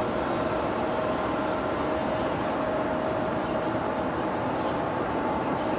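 Freight train rolling on the rails, a steady rumble of wheels with a constant high ringing tone over it.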